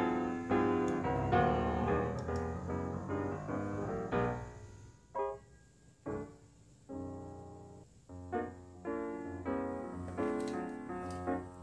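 Background piano music: separate notes that ring and fade, with a couple of brief pauses near the middle.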